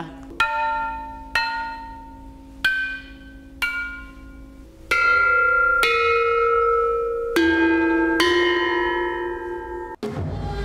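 Pyeonjong, a Korean set of tuned bronze bells, struck one bell at a time with a mallet: about eight strokes at different pitches, each ringing and fading. The first four are softer and spaced about a second apart; the last four are louder and ring on over one another.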